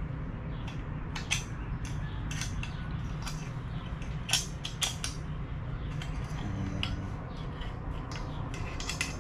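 Irregular light metallic clinks and clicks of hand tools and small parts being handled, over a steady low background noise; the sharpest clinks come a little after four seconds in and again near five seconds.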